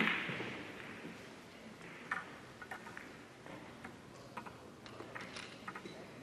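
Faint, scattered clicks of billiard balls echoing through a large tournament hall, with the reverberating tail of a sharper knock dying away at the start.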